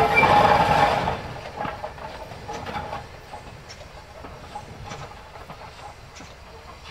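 LNER K4 class 2-6-0 steam locomotive 61994 The Great Marquess working a train past and away. It is loud at first, drops sharply about a second in and keeps fading, leaving faint clicks of the wheels over the rail joints.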